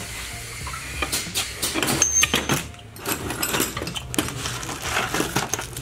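Metal hand tools clattering and clinking in a cluttered tool cart as a hand rummages through them, a rapid run of short knocks over a steady low hum.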